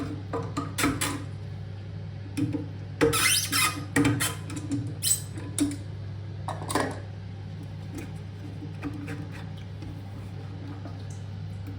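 Clicks, knocks and scrapes of plastic parts as a toilet cistern's part 2 ball valve is taken apart by hand to reach its washer, busiest in the first seven seconds and sparser after, over a steady low hum.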